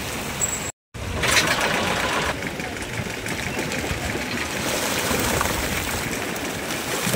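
A fishing boat's engine running steadily with a busy mechanical rattle. The sound cuts out completely for a moment just under a second in, then carries on.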